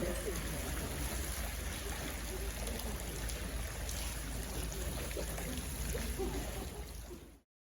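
Steady rush of running water with faint voices murmuring beneath it; the sound cuts off abruptly near the end.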